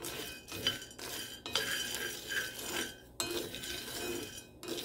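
Roasting coffee beans rattling and scraping in a cast iron skillet as they are stirred with a spatula, in repeated strokes with a short pause about every second and a half. The beans are at the cracking stage of the roast.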